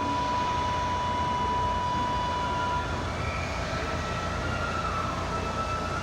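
Kintetsu 21020 series Urban Liner Next train pulling into the platform and slowing, a steady low rumble under high, steady whining tones; one whine stops about halfway and other, slightly higher ones take over, one sliding a little in pitch.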